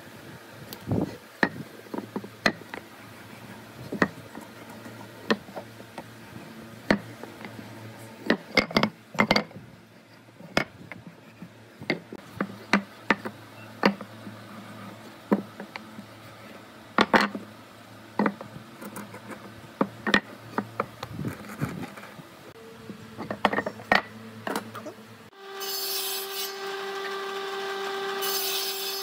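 Pine blocks and hand tools being handled on a wooden workbench: a string of sharp wooden knocks and taps with some scraping and rubbing. Near the end a table saw takes over, running steadily with a level hum and whine, its blade not yet cutting.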